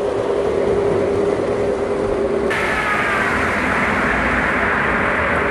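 O-gauge model trains running on track: a steady motor hum with wheel noise on the rails. About two and a half seconds in, the sound changes abruptly to a brighter rumble and rattle of a freight train rolling close by.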